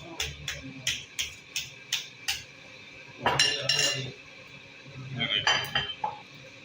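Dishes and metal utensils clinking and clattering: a quick run of light clinks, about three a second, then two louder, longer clatters a second or so each.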